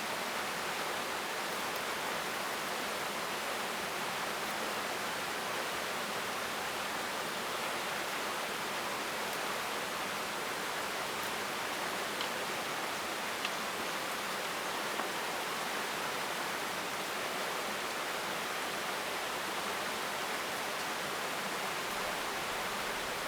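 Steady rush of running water, with a few faint ticks about halfway through.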